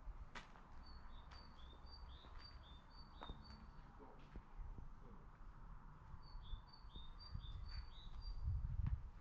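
A small songbird singing a repeated two-note phrase, a high note then a slightly lower one about twice a second, in two bursts of song. Low rumble and faint scattered clicks run underneath, with the rumble louder near the end.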